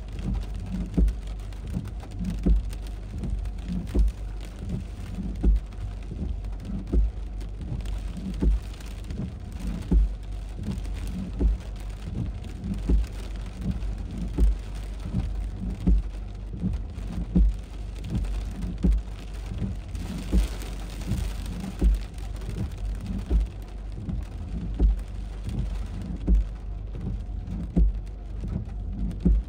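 Heavy rain falling steadily, with a low thump repeating about every second and a half.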